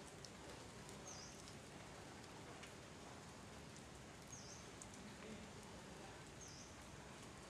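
Faint, steady hiss of light rain, with a small bird's short, high chirp that dips and rises, repeated three times about every two to three seconds.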